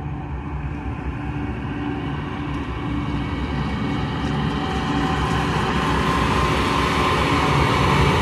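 Norfolk Southern diesel freight locomotives, led by AC44C6M No. 4235, running as the train approaches and passes close by, with a steady engine drone and rumble growing steadily louder.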